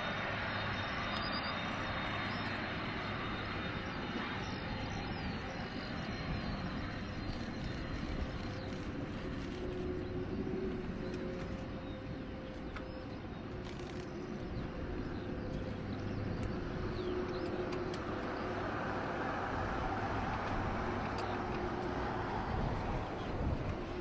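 Steady engine noise with a low hum and a few faint held tones, no sudden events.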